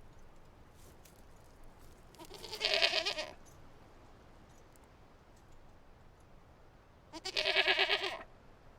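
A goat bleating twice, each bleat about a second long with a quavering, wavering pitch, the two several seconds apart.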